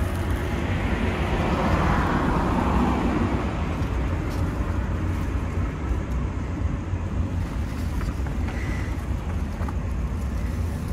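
Road traffic: a car passes, its noise swelling and fading over the first few seconds, over a steady low rumble.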